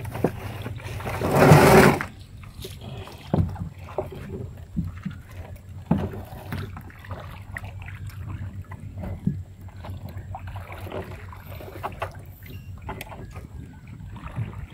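A crab gill net being hauled by hand into a small boat: scattered knocks and rustles of net and gear against the hull and basket, over a steady low hum. A loud rush of noise lasts about a second near the start.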